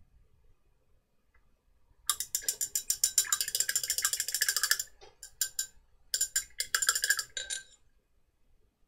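Rapid, even mechanical clicking like a ratchet, starting just over two seconds in and running for nearly three seconds, then a few short bursts and a second run of about a second and a half.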